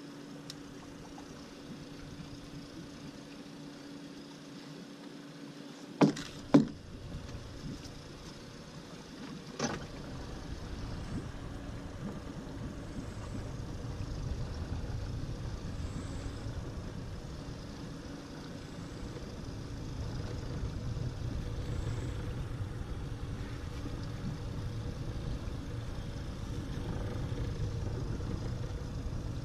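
Honda 90 four-stroke outboard motor running at low speed, a steady hum. Two sharp knocks come about six seconds in and a third near ten seconds, after which a low rumble rises and stays.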